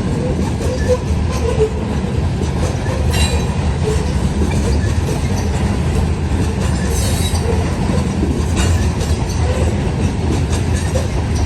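Loaded CSX freight train rolling past on the rails with a steady heavy rumble, a couple of sharp clanks and a brief high wheel squeal about seven seconds in.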